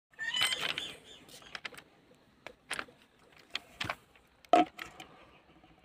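Scattered clicks and knocks as a car's side mirror is handled against a steel rail and ballast stones, with a busier clatter in the first second and the loudest knock about four and a half seconds in.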